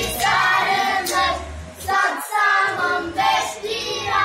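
A group of children singing a song together in chorus, with a short break about two seconds in.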